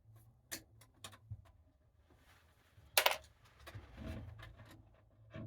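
Thermostat wire being stripped with hand tools: small clicks and scrapes, with one sharp snap about three seconds in, over a steady low hum.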